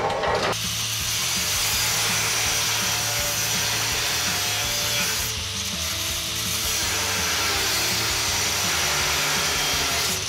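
Angle grinder with a cut-off disc cutting through 12 mm steel round bar: a loud, steady grinding hiss that eases briefly about halfway through, then carries on.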